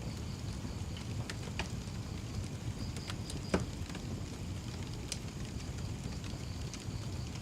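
Wood fire crackling: scattered sharp pops and snaps over a steady low rumble, with the loudest snap about three and a half seconds in.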